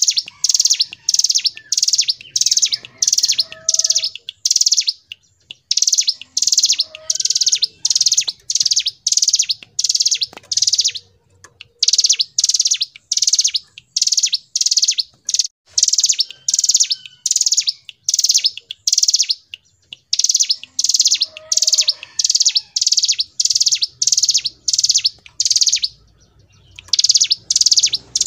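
Ciblek gunung (mountain prinia) singing its long rolling song: loud, rapid, evenly spaced high notes, about three a second, in runs of several seconds that break off briefly. Faint, lower chirps sound underneath.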